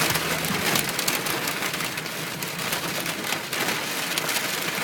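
Heavy rain pelting a car's roof and windows, heard from inside the cabin as a dense, steady patter of drops.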